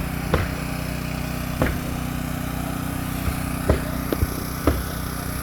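An engine running steadily with a low drone, with sharp knocks at irregular intervals, about six of them, over it.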